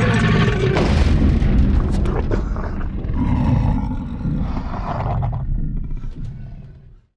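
Film Tyrannosaurus rex roar sound effect: one long, deep roar over a heavy low rumble, falling in pitch at the start, swelling again about three seconds in, then fading out near the end.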